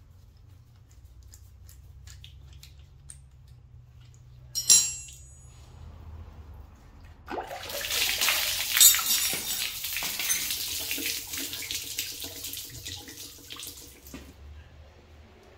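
Light clicks of tools on the engine, then a single sharp clank about five seconds in. From about seven seconds in, engine coolant gushes out of the opened water pump housing and splashes down for about seven seconds, then stops suddenly. The coolant is draining out as the water pump comes off the 2.0 TDI engine block.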